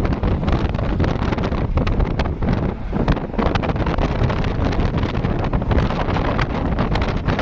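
Heavy wind buffeting the microphone over the low rumble of a moving vehicle, gusting unevenly throughout.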